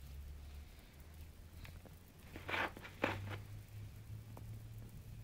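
Faint handling sounds, soft rustles and taps, with two short bursts about two and a half and three seconds in, over a low steady hum.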